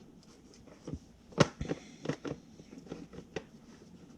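Hard plastic DeWalt ToughSystem storage cases being handled: a scattering of knocks and clicks, the loudest about a second and a half in.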